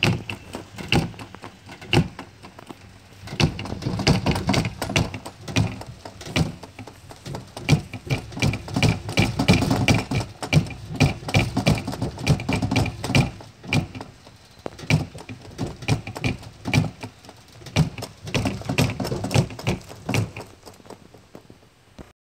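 Lid of a steamer trunk rattling and banging in rapid, irregular knocks as a wiper-motor-driven wheel inside jolts it up and down, the effect of a Monster in a Box prop.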